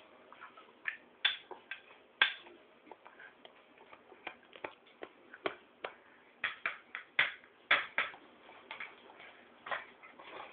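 Metal spoon clinking and scraping against a plate as a toddler eats french fries, in many irregular light taps, clustered most densely in the second half.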